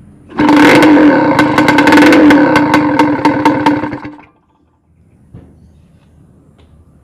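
Kawasaki Ninja RR 150 single-cylinder two-stroke engine, exhaust open with the silencer's cone and screen removed, running very loud at a steady high note with rapid crackling for about four seconds, then cutting off suddenly.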